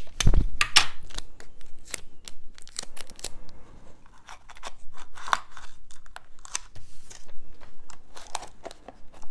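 Adhesive tape being pulled and torn by hand while paper and ribbon are handled on a tabletop: irregular crackles and clicks, busiest in the first second.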